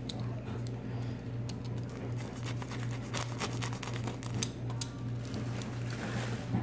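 Box cutter blade scraping and cutting through the hardened paper clay shell of a pumpkin sculpture: a run of small scratchy clicks and scrapes, over a steady low hum.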